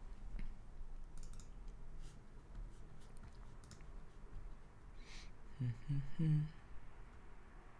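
Faint scattered clicks of a computer mouse and keyboard while searching for a file. About six seconds in there is a brief low hum of a voice.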